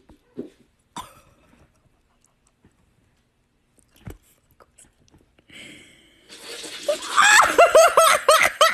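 A few faint knocks, then about six seconds in a person bursts out laughing: fast, high-pitched laughter, about five bursts a second.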